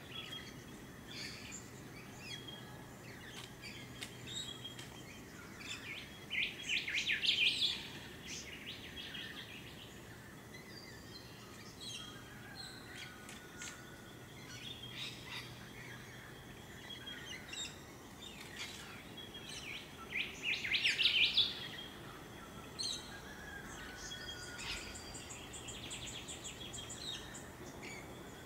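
Several wild birds calling and chirping, with two louder runs of rapid high notes, one about a quarter of the way in and one about two thirds through.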